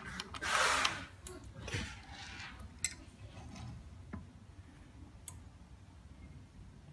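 Hands rubbing and scraping against the metal parts of a manual laminating press, followed by a few light metallic clicks and ticks that thin out to faint handling noise.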